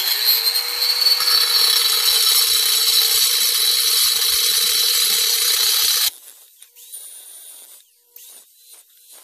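Angle grinder with a cutting disc spinning up and cutting into an earthenware jar lid, a loud harsh grinding over a steady motor whine. It stops suddenly about six seconds in.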